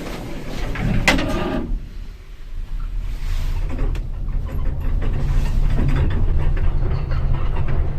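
Lift door closing with a clunk about a second in, then the car setting off and travelling with a steady low rumble.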